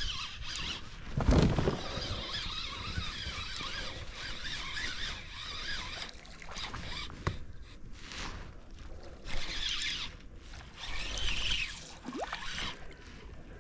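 Spinning reel's drag buzzing and the reel being wound as a hooked fish pulls on a bent rod, with a thump about a second in.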